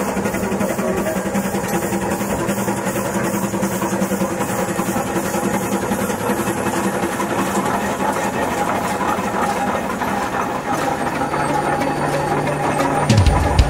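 Steam traction engine running as it moves along, with a rapid, even beat.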